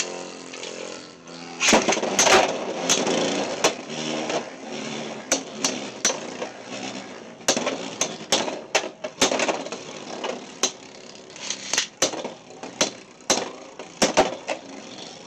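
Two Beyblade X spinning tops whirring in a plastic stadium, with many sharp clacks as they collide again and again during a battle.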